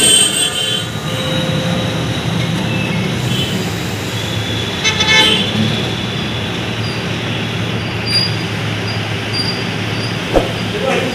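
Road traffic running by with a steady engine rumble, and vehicle horns tooting briefly at the start and again about five seconds in.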